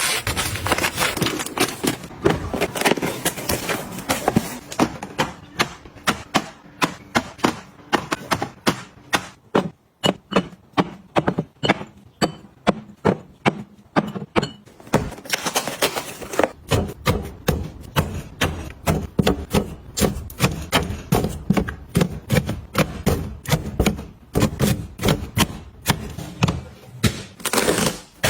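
A long run of quick taps, clicks and knocks as small objects and containers are handled and set down, several a second, thinning out for a few seconds midway.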